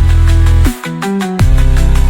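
Electronic background music with heavy sustained bass notes that drop sharply in pitch at each change, about every three-quarters of a second, over a steady beat.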